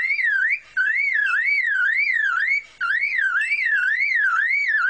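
Superb lyrebird mimicking a car alarm: a whooping tone that sweeps up and down about two and a half times a second, broken twice by short pauses.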